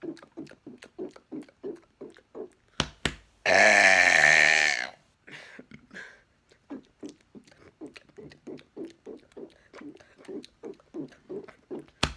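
A man's single long, loud, deliberate burp with a clear pitch, lasting about a second and a half, about three and a half seconds in, just after two sharp clicks. Around it, a steady run of short soft gulps, about three or four a second, as air is swallowed to bring up the next burp.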